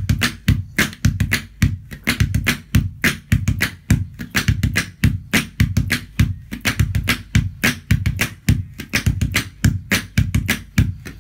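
Calabash (a large half-gourd drum) played by hand in a fast, steady rhythm of deep bass thumps mixed with sharp clicks and slaps.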